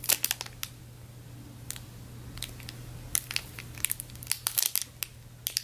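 Clear plastic packaging bag crinkling in short, scattered crackles as a foam squishy toy is squeezed and handled through it.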